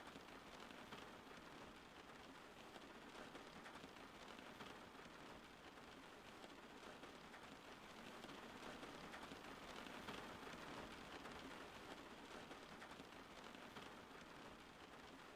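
Faint, steady rain falling, an even patter of many small drops.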